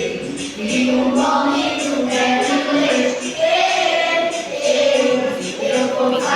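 Several voices singing together in chorus, holding long sung notes.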